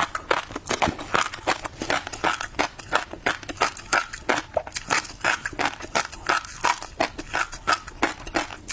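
Close-miked chewing of tobiko (flying fish roe): a rapid, irregular run of sharp crackling pops as the little eggs burst between the teeth.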